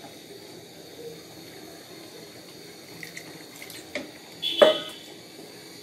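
Chicken and potato curry with freshly added hot water, liquid sloshing and simmering in a frying pan over a gas flame. A sharp metallic clink about four and a half seconds in is the loudest sound.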